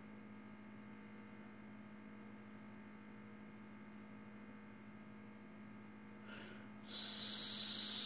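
Steady low electrical hum, then about seven seconds in a man breathes in sharply and loudly with a hissing sound, just before clearing his throat.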